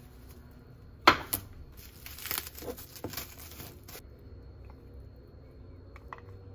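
Plastic cling wrap being peeled off a small ceramic pot: a sharp crackle about a second in, then crinkling for about three seconds. A few light taps near the end.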